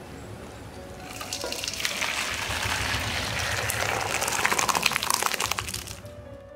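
Liquid sounds from a pot of cooked moong dal: a busy stream of small pops and splashes that builds from about a second in and stops about six seconds in.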